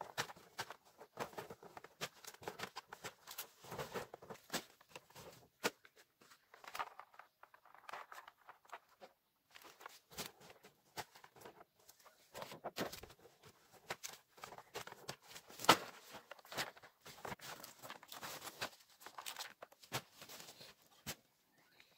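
Large fresh leaves being handled and stacked into a bundle on dry leaf litter: irregular rustling and crackling, with sharp snaps scattered throughout and the loudest one a little past the middle.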